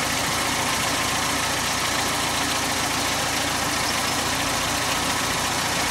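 Citroën DS four-cylinder engine idling steadily and evenly.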